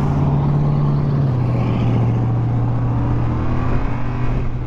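Yamaha Ténéré 700's CP2 parallel-twin engine running steadily while riding at low road speed, its pitch dropping slightly a little over a second in, then holding.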